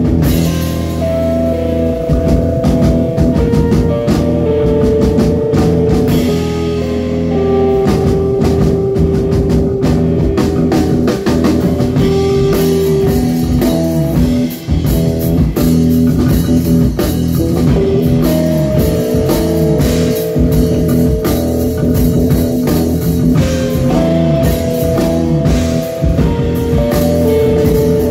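Live band playing an instrumental rock number on drum kit, electric bass and keyboards. A melody of long held notes runs over a busy drum beat and bass line.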